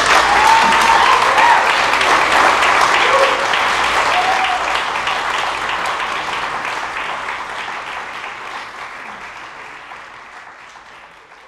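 Audience applauding and cheering after a marimba piece ends, with a few voices whooping in the first few seconds. The applause slowly dies away over the second half.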